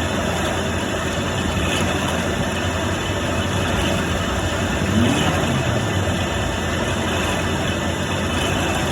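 CNC milling machine making a finishing pass with a 4 mm ball-nose cutter: a steady mechanical din, with a brief louder rise about five seconds in.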